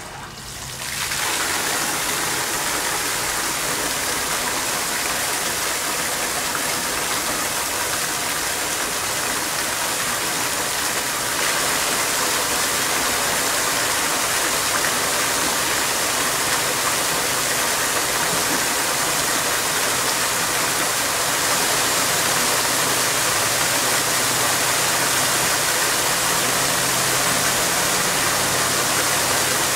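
A ring of fountain jets around a round central platform switches on about a second in, then water sprays and falls back into the pool with a steady splashing rush that grows a little louder about twelve seconds in.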